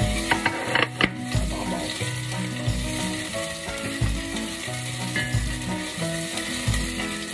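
Garlic and ginger sizzling in hot oil in a stainless steel pot while a spatula stirs them. There are a few sharp scrapes or knocks of the spatula against the pot in the first second or so.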